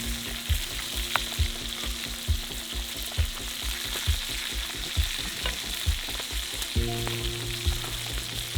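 Deer tenderloin sizzling as it cooks, a steady hiss, over background music with a low beat about twice a second and held notes that change about seven seconds in.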